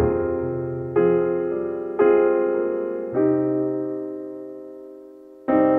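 Slow, gentle piano music: chords struck about a second apart, the fourth left to ring and fade for a couple of seconds before another chord comes in near the end.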